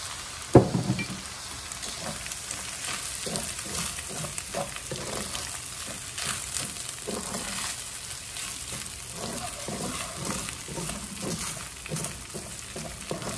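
Rice stir-frying in a hot nonstick wok: steady sizzling with repeated scraping and tapping of a wooden spatula against the pan as the rice sticks to its bottom. A single loud knock about half a second in.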